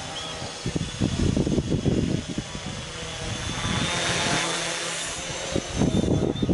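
Homebrew H-frame quadcopter's electric motors and propellers buzzing in flight, swelling as it passes close about four seconds in, with the pitch sweeping as it goes by. Irregular low buffeting comes before and after the pass.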